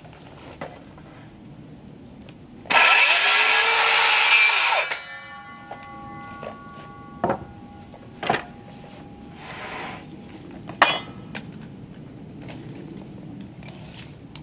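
Handheld circular saw cutting through a wooden siding board for about two seconds, then the blade ringing briefly as it spins down. A few sharp knocks follow.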